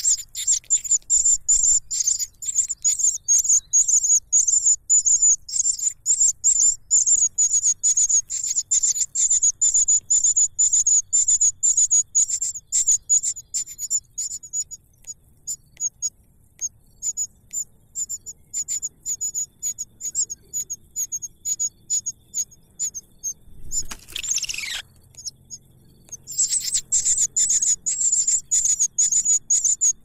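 Nestlings begging in the nest with rapid, very high-pitched cheeps, several a second. The cheeps thin out through the middle and come thick again near the end. About three-quarters of the way through, one longer call sweeps down steeply in pitch.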